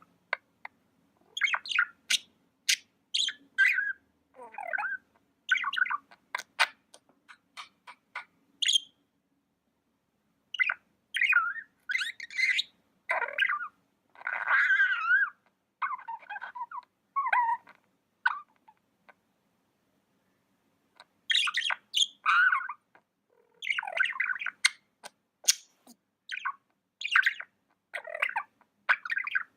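Budgies (budgerigars) chirping and warbling in quick bursts of sharp chirps and wavering calls, breaking off twice for about two seconds.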